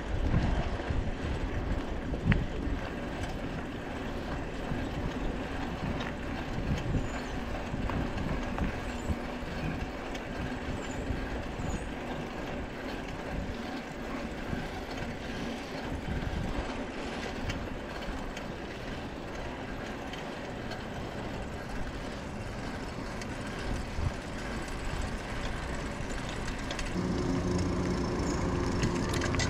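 Bicycle riding on paved road, heard from a handlebar-mounted camera: steady tyre and wind noise with small rattles and clicks from the bike, gusting near the start. A steady low hum comes in near the end.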